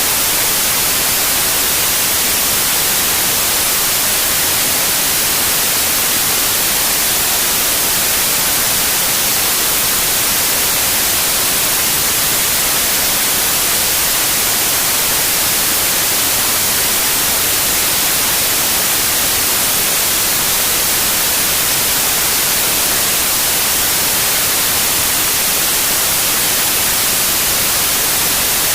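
Steady white noise: an even, unchanging hiss, brightest in the high treble, with no gusts, events or pitch.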